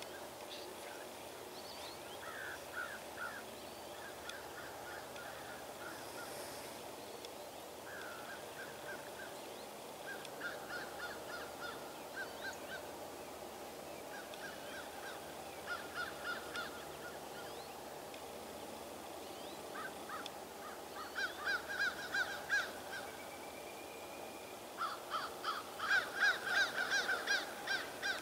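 Large birds calling in repeated runs of short notes, a few calls a second. The runs grow louder and come more often in the last third.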